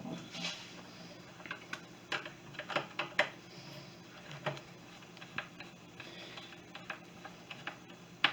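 Irregular light clicks and taps of a screwdriver and the miter saw's blade-guard parts being handled as the guard's retaining screw is tightened back down.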